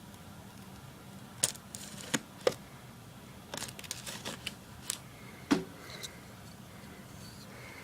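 A knife cutting and scraping at the cardboard packaging of a boxed PC power supply, with handling of the box: a run of sharp, irregular clicks and short scrapes, the loudest about five and a half seconds in.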